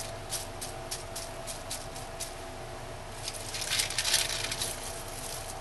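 Bubble wrap and plastic sheeting crinkling as gloved hands handle it: scattered light crackles at first, then a louder burst of rustling about three seconds in as a sheet is lifted.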